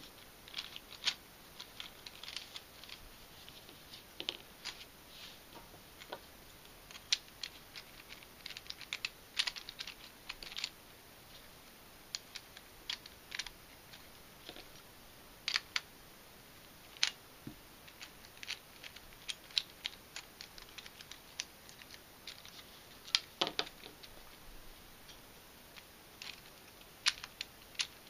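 Irregular clicks and taps of hard 3D-printed plastic puzzle pieces being pushed and twisted into a loosened twisty-puzzle core by hand, with a few louder knocks.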